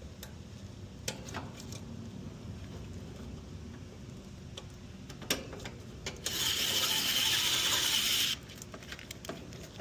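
Sharp metal clicks and taps from hand work on an air-conditioning unit during a capacitor replacement. About six seconds in comes a steady whirring hiss that lasts about two seconds and cuts off suddenly.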